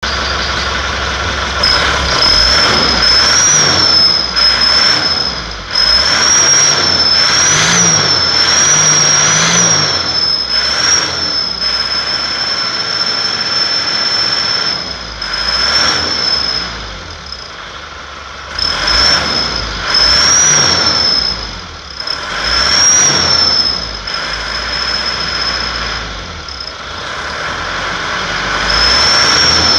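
Aftermarket turbo whistler on an Isuzu Panther Touring's diesel engine: a steady high whistle over the engine, rising briefly in pitch with each blip of the throttle, about seven times. The whistle fades out twice as the revs drop.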